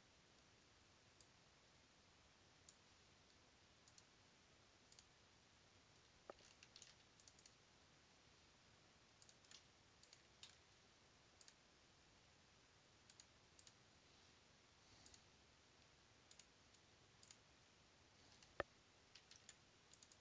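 Faint computer mouse and keyboard clicks over near silence, scattered and sometimes in quick clusters, with one sharper click near the end.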